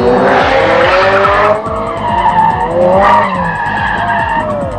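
Car tyres screeching as the car skids sideways out of control, with its engine note climbing under the screech. The screech eases about a second and a half in, and the noise swells again near three seconds.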